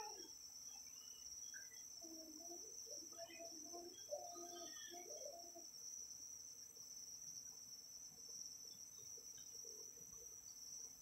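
Crickets trilling: a faint, steady, high-pitched drone of chirping insects. A faint muffled voice murmurs briefly a couple of seconds in.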